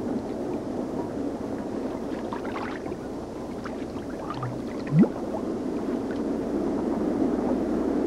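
Steady wind and water noise. About five seconds in, a single short low call rises quickly in pitch; it is the loudest moment.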